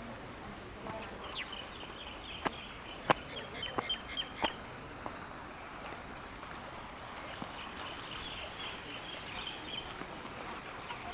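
Small birds chirping in quick runs of short high chirps, one run in the first half and another later, over a steady background hiss. A few sharp clicks come in the first half.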